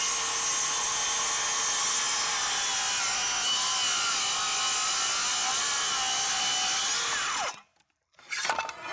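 Metabo HPT 36V MultiVolt 7-1/4 inch cordless circular saw ripping lengthwise through hardwood in regular (full-power) mode, running steadily under load. Near the end the blade winds down and the sound cuts off abruptly, followed by a brief faint sound.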